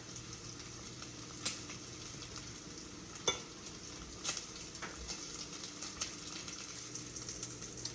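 Sliced smoked sausage sizzling in a hot frying pan, a steady faint hiss, with a few light clicks of a utensil against the pan as pieces are lifted out.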